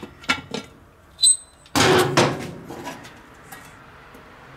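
Metal clinks, a short ringing ping, then two heavy clanks about two seconds in as a steel lid lifter is unhooked from the handle of a cast-iron Dutch oven lid and set down.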